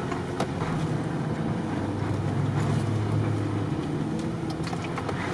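Off-road vehicle's engine running steadily as it drives along a muddy rut, swelling a little around the middle and easing off again.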